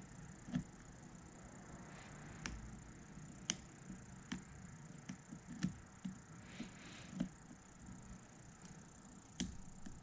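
A small hand tool picking and scraping bark off a Shimpaku juniper trunk: scattered, irregular sharp clicks and small snaps of bark, about ten in all, with a brief soft scrape a little after the middle.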